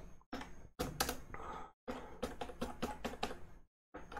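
Computer keyboard being typed on: short runs of quick key clicks with brief pauses between them.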